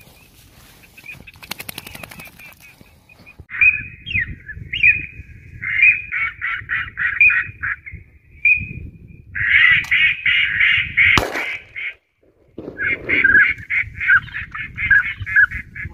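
Ducks quacking in rapid bouts of about four to five nasal quacks a second, with a low rumble underneath and one sharp click a little after the middle.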